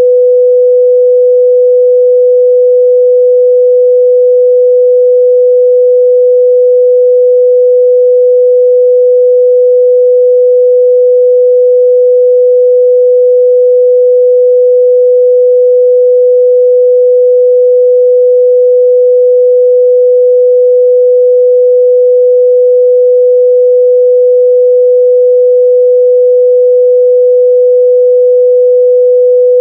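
Steady, loud pure sine tone at 497 Hz, a single unchanging pitch with no other sound.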